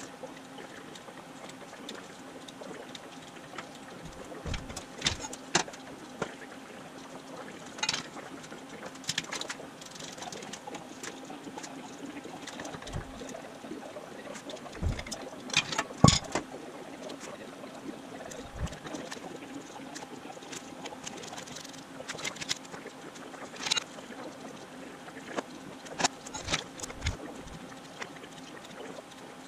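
Hydraulic bottle-jack pipe bender being worked on steel tube, giving scattered metallic clicks and knocks, the loudest about sixteen seconds in, over a steady low hum.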